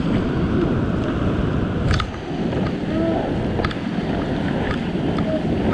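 Ocean swell surging and breaking against a rock ledge, with wind buffeting the microphone.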